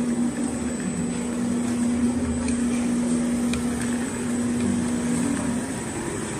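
Large-format CNC sewing machine running with a steady hum over mechanical noise, which stops near the end.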